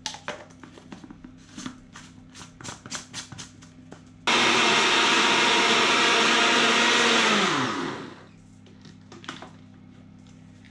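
Kenwood blender motor running for about three and a half seconds, whizzing cooked pears to a purée, then winding down as it is switched off. Before it starts, a run of clicks and knocks as the jar with its blade lid is handled and set on the motor base.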